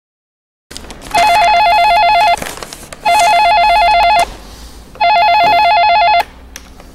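Desk telephone ringing three times with an electronic warbling trill, each ring a little over a second long and about two seconds apart.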